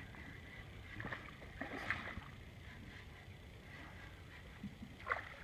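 Gentle water lapping against a small boat's hull, with a few faint knocks. Near the end, a hooked fish thrashes and splashes briefly at the surface.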